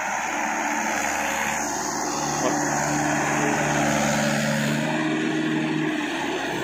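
Trakstar 545 tractor's diesel engine running steadily as the tractor drives through deep mud on iron cage wheels. It grows louder as the tractor comes close, loudest about four seconds in, then eases off near the end.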